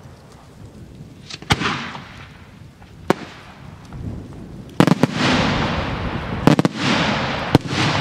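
Italian multi-break aerial salute shells bursting overhead: a series of loud, sharp bangs, some single and some in quick pairs or triples, each trailed by a long rolling echo that fades away.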